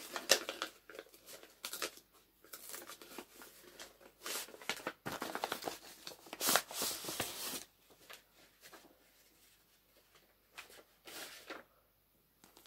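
Brown paper wrapping rustling and crinkling as it is pulled open by hand to take out a paperback book. It comes in irregular bursts, the loudest about six and a half seconds in, and dies away near the end.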